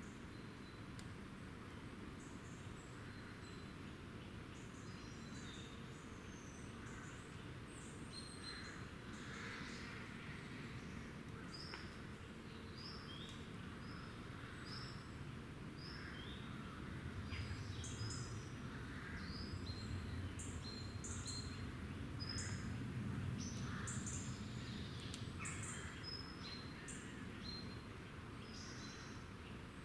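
Small woodland birds calling and singing: a run of short, high chirps and quick note series, some repeated about once or twice a second, over a low steady rumble that swells a little in the middle.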